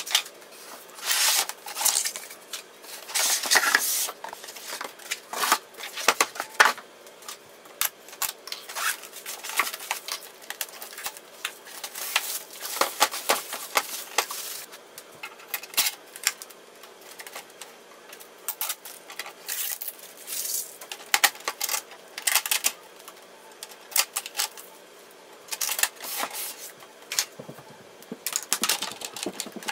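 Unpacking noises: a cardboard box, paper-pulp inserts, plastic wrap and blue shipping tape being handled and pulled off an inkjet printer, in irregular rustles and crackles with scattered sharp clicks and knocks.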